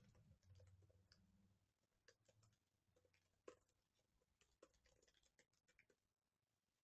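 Near silence: room tone with a faint low hum for about the first second and a half, and faint scattered clicks.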